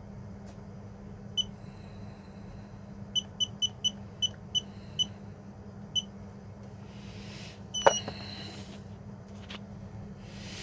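Handheld Konnwei battery tester beeping once with each button press as its rated cold-cranking amps setting is stepped up, about nine short high beeps at an uneven pace. About eight seconds in there is a louder click with a brief falling beep. A steady low hum runs underneath.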